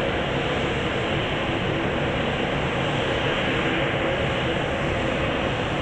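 Jet engines of an Airbus A320-family airliner on final approach, a steady rushing drone that holds an even level.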